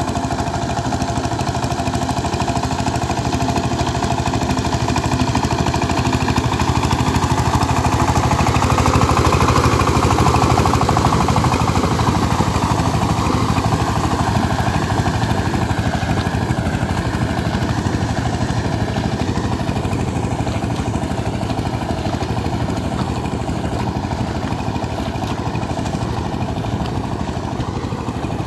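Two-wheel power tiller's single-cylinder diesel engine running steadily under load while ploughing wet paddy mud, on a trial run after repair. It grows louder as it passes close about ten seconds in, then fades as it moves away.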